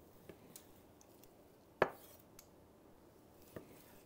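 Chef's knife slicing through venison steaks and knocking on a wooden butcher-block board: one sharp knock about two seconds in, with a few faint ticks around it.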